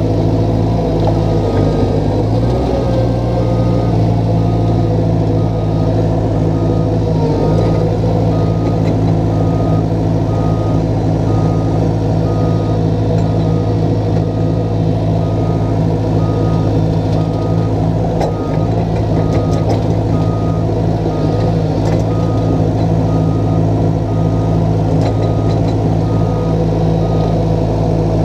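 Small crawler dozer's diesel engine running steadily, with its backup alarm beeping at an even pace, which signals the machine is travelling in reverse. A few sharp metallic clanks come in the second half.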